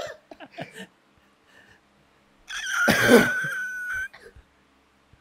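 A person's wordless vocal sound about halfway through: a sudden outburst trailing into a high held note for a second or so, after a short stretch of near quiet.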